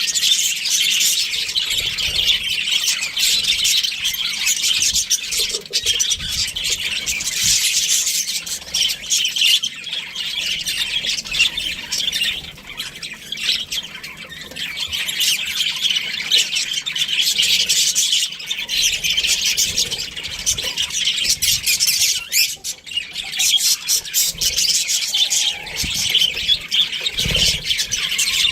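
Budgerigars chattering, with a continuous run of rapid chirps and squawks, easing briefly twice.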